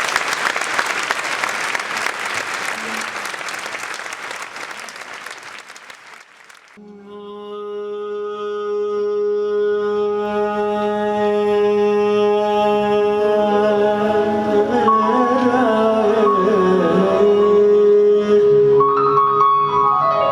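Applause dies away, then a reed instrument starts suddenly with a steady drone, and a winding melody joins above the drone partway through.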